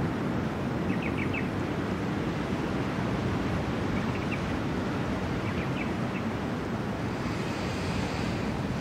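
Steady wash of ocean surf and wind on an open beach, with a few faint high chirps about a second in and again around four and six seconds.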